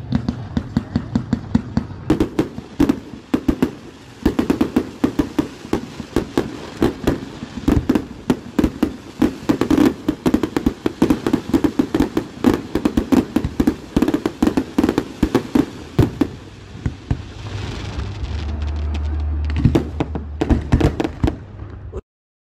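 Aerial fireworks display going off in a rapid barrage, several bangs a second, one after another. The sound cuts off suddenly near the end.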